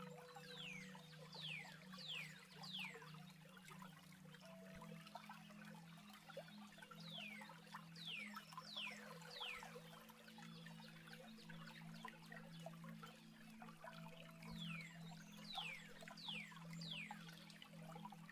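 Faint birdsong: groups of about four quick, high, downward-sliding whistles, repeating roughly every seven seconds. Underneath runs the steady hiss of a trickling water stream.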